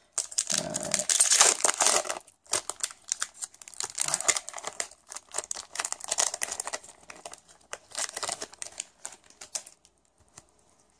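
Foil wrapper of a Pokémon trading-card booster pack being torn open and crinkled in the hands as the cards are worked out. The crinkling is loudest in the first two seconds, goes on in uneven crackles, and dies away about ten seconds in.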